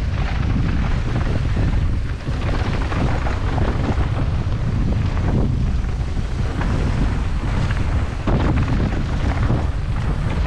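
Wind buffeting the microphone of a GoPro on a downhill mountain bike at speed, with tyres crunching over loose dirt and gravel and many small rattling clicks from the bike.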